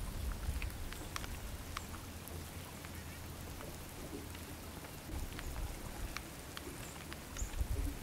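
Irregular patter of drops ticking on a surface, scattered single ticks over a steady low rumble.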